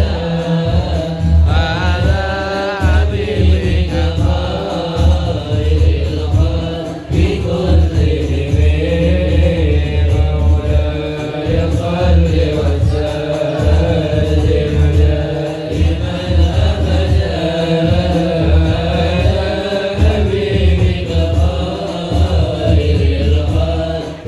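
A congregation of men and boys chanting Islamic devotional songs (sholawat) together, led by singers at microphones and amplified over loudspeakers. Long sung lines rise and fall in pitch, over a heavy bass.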